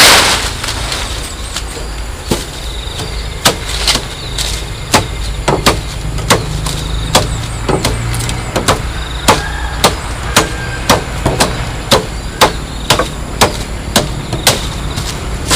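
A series of sharp knocks or strikes, sparse at first and then about two a second, over a steady low hum.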